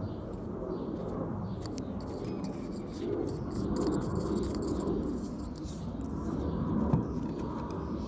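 Faint clicks and taps of small metal carburetor parts being handled and fitted together, over a steady low background rumble.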